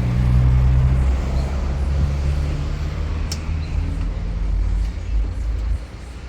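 Car engine running with a steady low rumble that drops away shortly before the end.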